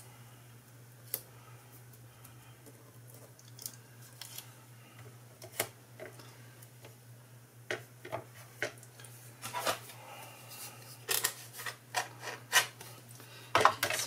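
Clicks and light knocks of plastic cutting plates and a thin metal die being handled and stacked on the platform of a small die-cutting machine. They grow more frequent in the second half, over a steady low hum.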